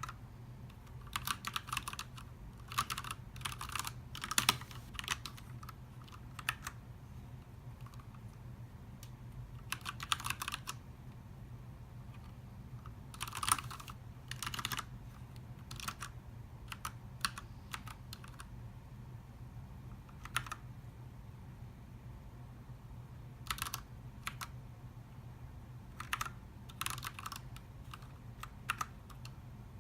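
Keys of a Ducky One TKL mechanical keyboard with Cherry MX Red switches being pressed in short scattered clusters of clacks, with pauses of a few seconds between them. A faint low steady hum runs underneath.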